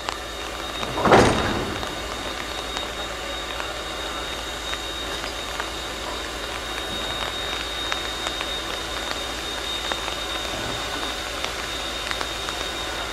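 Steam locomotive moving off slowly. One loud, short burst of steam comes about a second in, followed by a steady hiss with a thin high tone and a few faint light clicks.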